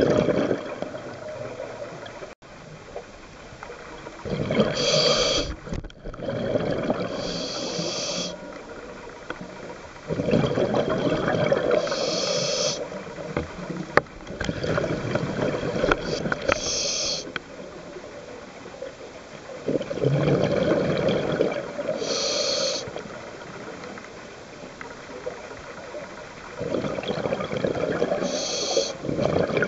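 A scuba diver breathing through a regulator underwater: every few seconds a hiss on the inhale and a rush of rumbling, bubbling exhaust bubbles on the exhale, in a slow, even rhythm.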